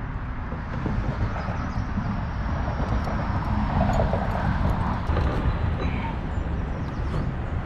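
Wind buffeting the camera microphone: a steady low rumble.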